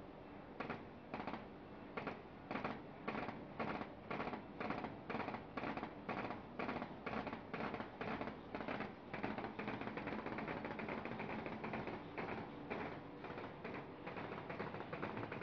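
ZB1100A sheet-feeding paper bag tube forming machine running: a rhythmic clatter of about two strokes a second over a steady mechanical hum. The strokes start about half a second in and become quicker and less distinct after about nine seconds.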